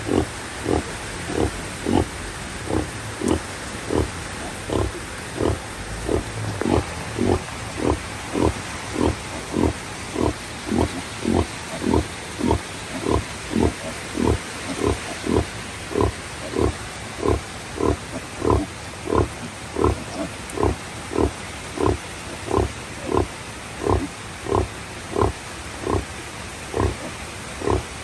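Sow grunting in a steady rhythm, short grunts about twice a second, the nursing grunts a sow makes while her piglets suckle, over the constant hiss of heavy rain.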